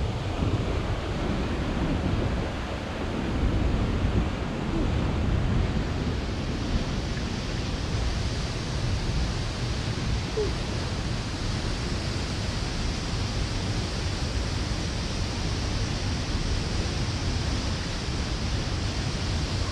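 Punch Bowl Falls on Eagle Creek pouring into its pool: a steady rushing roar of falling water.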